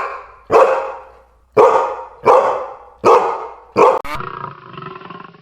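A dog barking: about six sharp barks in a row, each fading quickly, followed by a quieter, rougher sound near the end.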